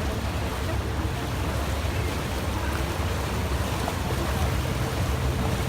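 Tour boat under way: the engine runs with a steady low rumble and a faint steady hum, under a continuous rush of water and wind.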